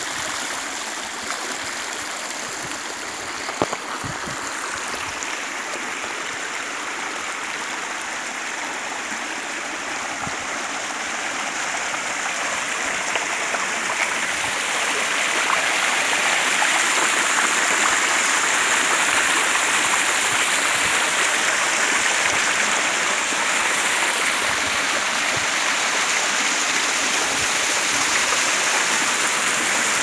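Water rushing and splashing down a narrow rocky channel in a small waterfall: a steady rush that grows louder about halfway through.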